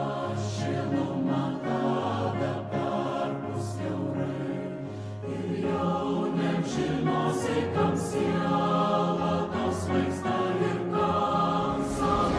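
A choir singing, with long held low notes under the voices.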